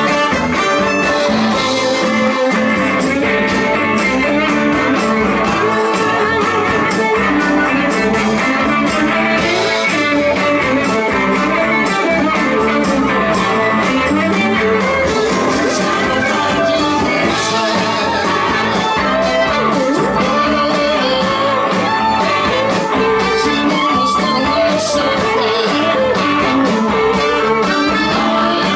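Live blues band playing an instrumental passage, with guitar prominent over bass and drums.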